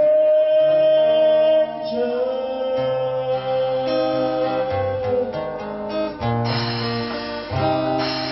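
Live acoustic band finishing a Vietnamese ballad: a male singer holds two long notes over acoustic and electric guitar with cajón, then the guitars strum the closing chords.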